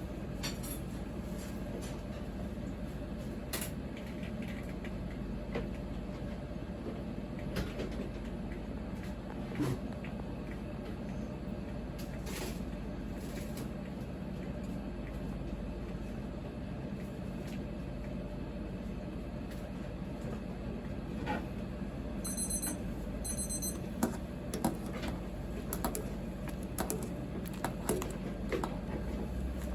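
Steady hum of a working kitchen with scattered light clicks and knocks, and a brief run of high electronic beeps about two-thirds through.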